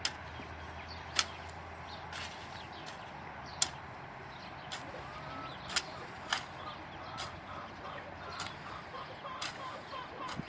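Irregular sharp clicks and snaps, two of them loud in the first few seconds. From about halfway on, a hen clucks in short repeated notes.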